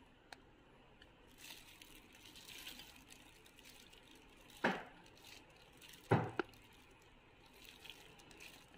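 Quiet kitchen handling sounds as thick, sticky corn dog batter is spooned into a drinking glass, with two short knocks about halfway through and a little later.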